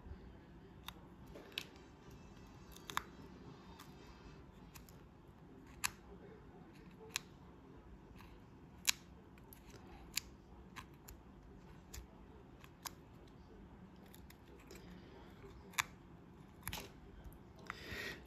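Faint, irregular small clicks and taps of a wooden toothpick and fingertips working over a small painted scale model vehicle as blu-tac masking is picked off the paint, about a dozen sharp ticks spread over low room hum.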